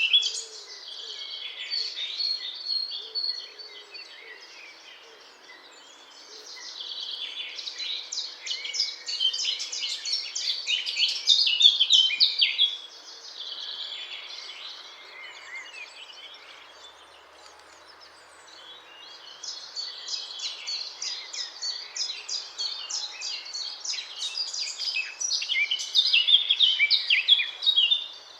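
Eurasian blackcap singing: long bouts of fast, varied warbling, with quieter pauses between the bouts.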